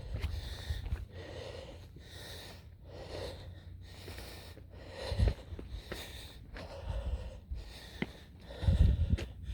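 A hiker breathing hard while climbing, a heavy in-and-out breath about once a second, with a few low rumbles, the loudest near the end.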